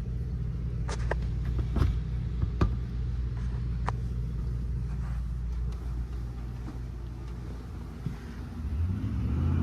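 Steady low mechanical hum with several sharp clicks and taps in the first four seconds; the hum grows louder near the end.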